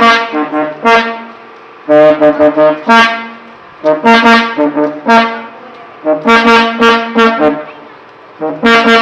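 Music led by a brass-like horn, playing a melody in short phrases of a few held notes about every two seconds, with brief pauses between phrases.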